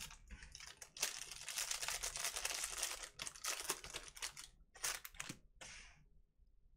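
Crinkly plastic wrapper of a baseball card pack being torn open and handled as the stack of cards is pulled out. There is a dense stretch of crinkling from about a second in to about three seconds, then a few shorter rustles.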